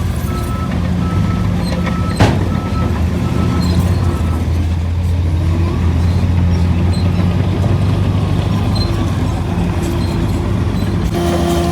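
Shantui DH17C3 bulldozer's diesel engine running steadily under load while it pushes soil, with one sharp metallic clank about two seconds in. A short high beep repeats about twice a second for the first four seconds.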